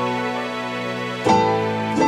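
Soft background music: sustained piano-like chords, with a new chord struck about a second and a half in.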